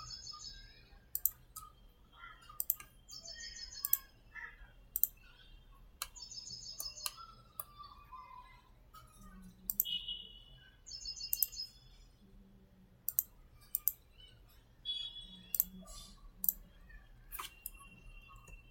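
Computer mouse clicking every second or so as buttons are pressed in a CAD program. Between the clicks, small birds chirp in the background in short, high trills every few seconds.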